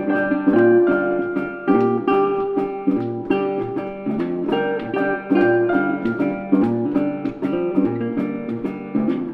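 Background music: plucked acoustic guitar with a steady, regular rhythm.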